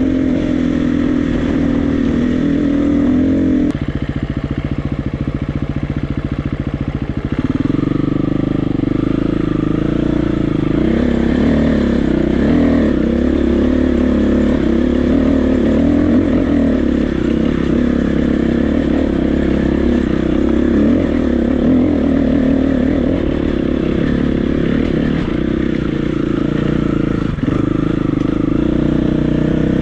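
KTM 350 EXC-F's single-cylinder four-stroke engine running as the bike is ridden, its pitch rising and falling with the throttle. About four seconds in it settles to a lower, steady note for a few seconds, then picks up again.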